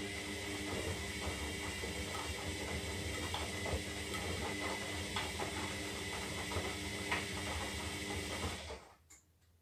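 Zanussi Lindo 300 washing machine turning its drum in the wash phase: the motor runs with a steady whine, with scattered clicks and knocks from the tumbling load. The motor stops suddenly about nine seconds in as the drum pauses, then one click.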